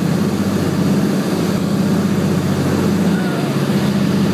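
Steady cruise drone of a Beech 18's twin radial engines and propellers, heard from inside the cabin.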